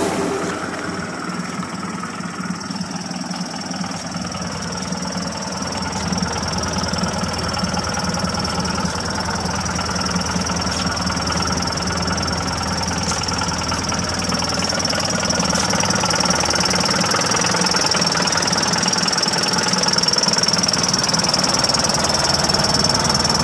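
Datsun 620 pickup's four-cylinder engine idling steadily, growing a little louder towards the end, with a steady high-pitched whine over it.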